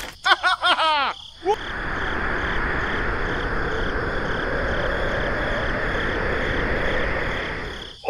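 A quick run of short falling-pitch cartoon chirps, then a steady rushing wind sound effect that lasts about six seconds and fades out near the end.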